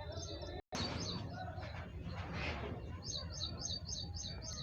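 Small birds chirping in quick series of short, high repeated notes over a low background rumble, with the sound cutting out for a moment just under a second in.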